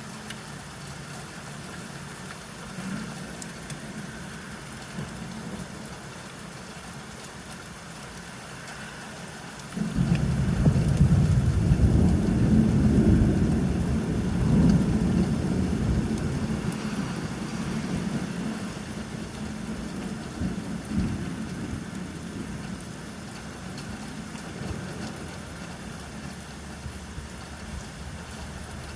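Steady rain falling, with a clap of thunder breaking suddenly about ten seconds in. The thunder is loudest for the next few seconds, then rolls away slowly.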